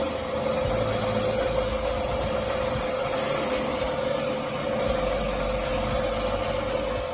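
Metal lathe running steadily: a constant whine over even machine noise.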